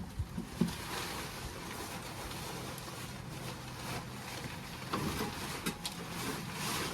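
Steady rushing noise with a few light knocks, one just after the start and a few more in the last two seconds.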